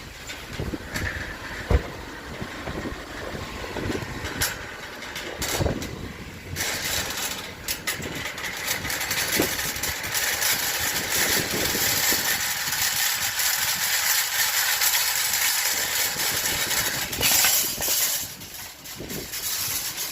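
A car running, with a few knocks and clicks at first, then a steady rushing noise that comes in about six seconds in and dies down near the end.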